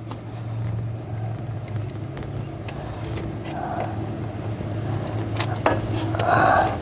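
Scattered light metallic clicks and scrapes as a starter mounting bolt is turned out by hand, over a steady low hum.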